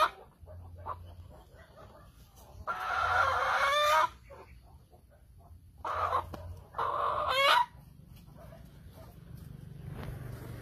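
An animal calling loudly three times: a long call about three seconds in, then a short call and another long call around six to seven and a half seconds. Each long call ends in a rising glide.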